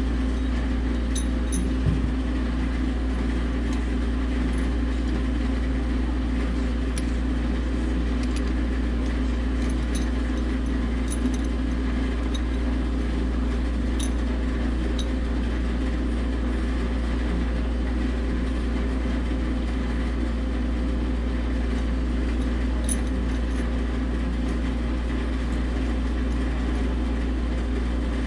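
Steady low machinery hum, with a few light metallic clicks scattered through it.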